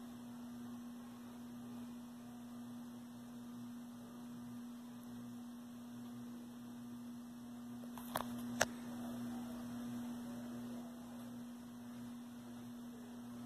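Old Loren Sid four-blade ceiling fan running, its motor giving a steady low electrical hum. Two sharp clicks sound close together about eight seconds in.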